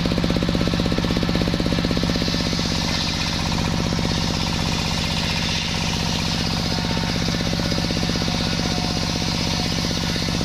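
Sawmill running: a steady, rapidly pulsing engine drone with the hissing rasp of the saw blade cutting through a waru (sea hibiscus) log. The rasp grows stronger about two seconds in.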